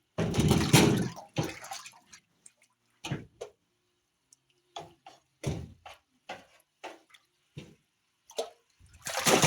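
Water splashing and dripping in a container holding live catfish: one loud splash at the start, then short, irregular splashes and drips.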